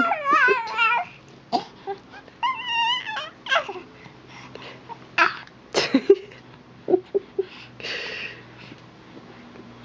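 A baby making high-pitched, wavering squeals and fussy whimpering sounds. Short sounds come with pauses between them, and there is a breathy sound near the end.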